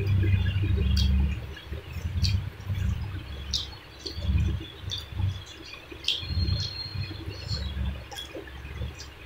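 Close-miked eating sounds of a man chewing mouthfuls of mutton biryani: a low chewing rumble that comes and goes about once a second, with wet lip smacks and mouth clicks.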